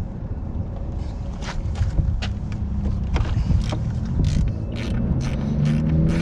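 Socket ratchet clicking in short, irregular strokes as a 10 mm bolt is worked loose, over a steady low rumble.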